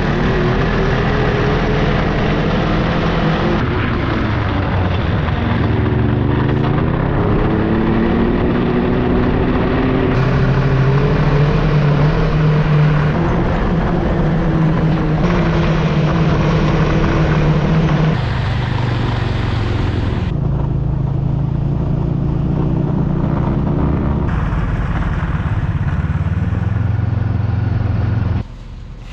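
Ski-Doo Grand Touring snowmobile engine running under way, its pitch rising and falling with the throttle. The sound changes abruptly several times and drops away sharply near the end.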